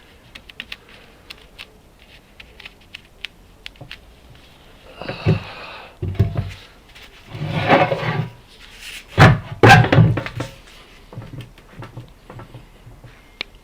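Handling noise: small scattered clicks, then a few dull thumps and scraping knocks about halfway through, as objects are moved and set down in a small room.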